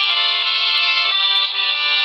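Piano accordion playing a melody over held chords, the reedy notes changing every fraction of a second, with no low bass heard.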